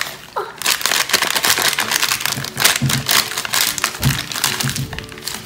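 A paper packet of instant pudding mix crinkling and crackling as hands squeeze and shake it to empty the powder into a glass bowl, with a few soft low thumps.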